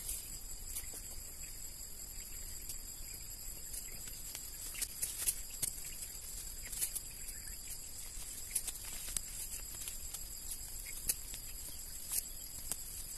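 Weeds being pulled out of the soil by hand around an oil palm's base: irregular small snaps, crackles and rustles of roots and dry leaf litter. A steady high-pitched insect drone runs underneath.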